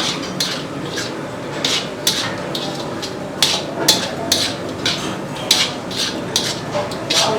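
Cooked rice being mixed into vangi bath masala in a cooking vessel: irregular scraping and knocking strokes against the vessel, roughly one or two a second.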